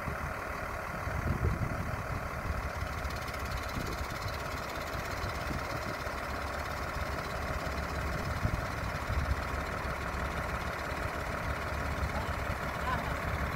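Crane truck's diesel engine idling steadily, driving the truck-mounted crane's hydraulics while it holds a suspended load.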